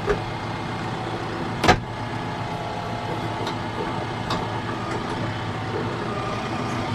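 Tractor engine running steadily, with one sharp click a little under two seconds in and a few faint ticks later.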